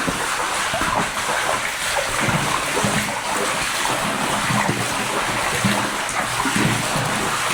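Floodwater splashing and sloshing around feet wading through a flooded drainage tunnel, with irregular surges from about two seconds in.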